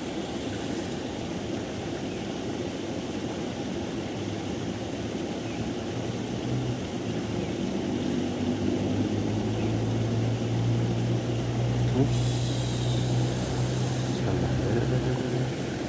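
A low, steady engine drone that builds up through the middle and drops away near the end, over a steady background rush.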